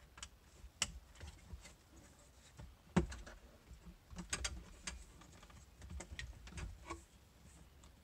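Plastic centre dash trim panel of a 2015 Honda Fit being handled and fitted back onto its clips: scattered light clicks and taps, with a sharper knock about three seconds in and a quick run of clicks a second later.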